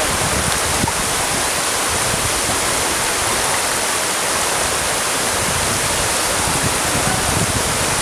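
Waterfall and the cascade below it rushing steadily: an even, unbroken wash of falling water.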